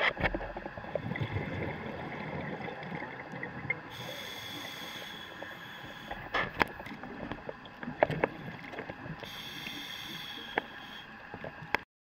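Underwater sound of a scuba diver's regulator breathing: bubbling rumbles with two longer hissing stretches and scattered sharp clicks. It cuts off suddenly just before the end.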